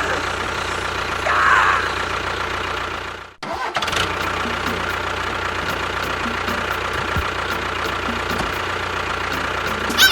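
A small motor running steadily. It cuts out sharply about three and a half seconds in and starts again at once.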